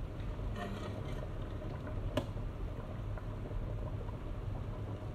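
Pot of goat stew bubbling on the stove over a steady low hum, with one sharp clink of the metal ladle against the pot about two seconds in.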